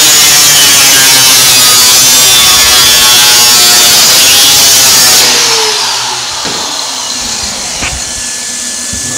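Angle grinder running loud against the steel of a fender's weld seam, grinding it down, then switched off about five seconds in and winding down with a falling pitch.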